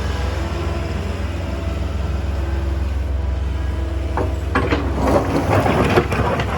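Excavator's diesel engine running steadily. In the last two seconds, stones clatter and knock against each other and the steel bucket.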